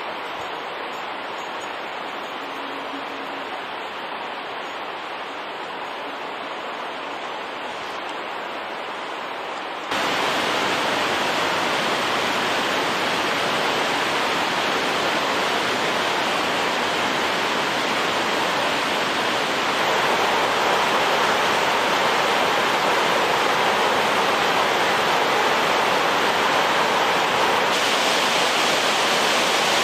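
Steady rushing of a whitewater mountain river, an even noise with no distinct events. It steps up abruptly in loudness about ten seconds in and again about twenty seconds in.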